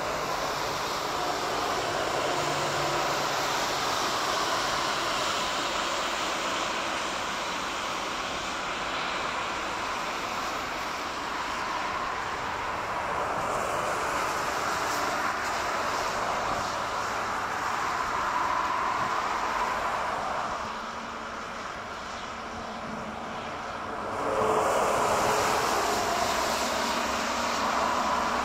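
Jet airliner engine noise at an airport, a steady rushing drone that swells louder about three-quarters of the way through as an aircraft draws nearer.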